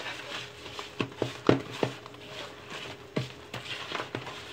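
Metal fork stirring flour into a wet bread dough in a bowl, giving irregular clicks and knocks against the bowl.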